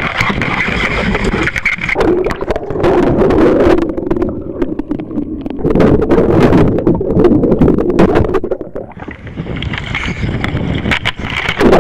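Wind buffeting the microphone and rough water splashing around a kayak, with many sharp knocks and scrapes.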